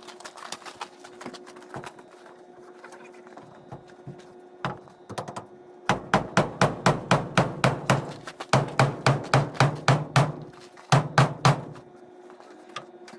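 Hammer striking wood: a few scattered knocks, then a long run of quick strikes at about four or five a second, a short pause, and a few more strikes.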